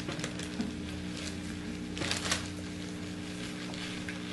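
Plastic bags of foam slime beads rustling and crinkling as the beads are shaken out, with a louder rustle about two seconds in, over a steady electrical hum.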